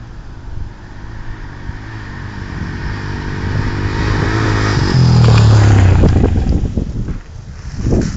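A Volkswagen T4 van's engine pulling under load, getting louder to a peak about five seconds in and then easing off. Near the end come a run of clattering knocks.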